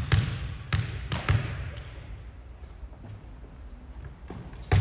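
A volleyball bounced on a hardwood gym floor three times, about half a second apart, each a sharp thud that echoes in the hall. Near the end comes one sharp, louder slap as the server strikes the ball.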